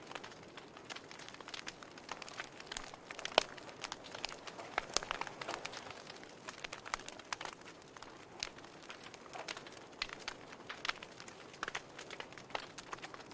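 Fire crackling in a fireplace: irregular sharp pops and snaps over a soft hiss, with one louder pop about three and a half seconds in.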